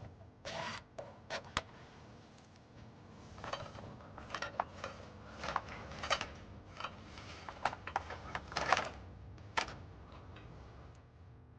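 Irregular clicks and short rasps of hands working a wire along a vehicle's brake lines and fastening it with plastic zip ties, the ties ratcheting as they are pulled tight.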